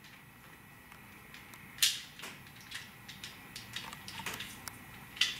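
Scattered light clicks and taps from a plastic lock keypad base and its USB cable being handled while the cable is threaded through. Two sharper clicks stand out, one about two seconds in and one near the end.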